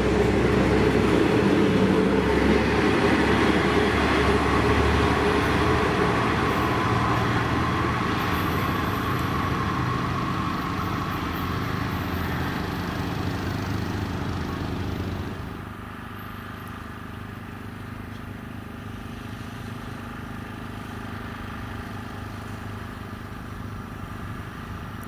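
V/Line N class diesel locomotive hauling a passenger train away from the platform: steady engine note with wheel and rail noise, fading gradually as it pulls away. About fifteen seconds in it drops off sharply to a much quieter steady background.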